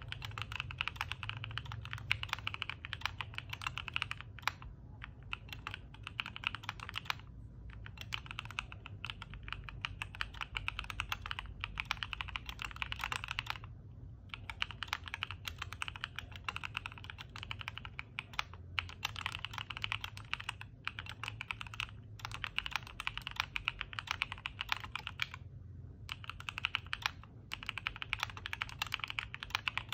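Fast, continuous typing on an Angry Miao Black Diamond 75 mechanical keyboard with DR Rapid Ice linear switches: a dense run of key strokes with a few brief pauses. A low hum runs underneath.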